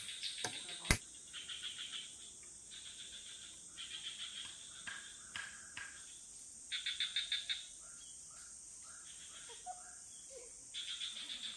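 Tropical forest ambience: a steady high-pitched insect drone, with repeated bouts of rapid pulsed chirping and a few short gliding calls. Two sharp clicks come within the first second.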